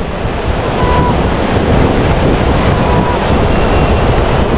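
Strong wind buffeting the microphone over the steady wash of ocean surf.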